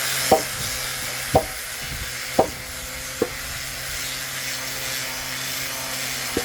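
Four sharp knocks about a second apart, each with a short ring, then one more near the end, over a steady low hum.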